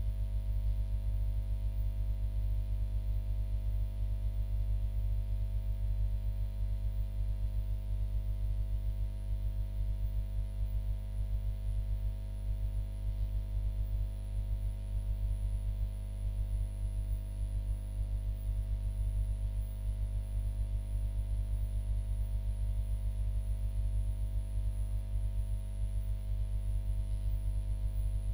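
Steady low electrical hum with a buzzy edge, unchanging throughout.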